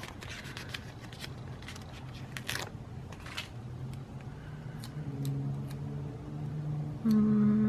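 Sticker sheet and backing paper rustling, with small clicks as stickers are peeled and pressed down. About halfway through a low hum of a person's voice comes in, changing notes, and ends in a short, louder held note.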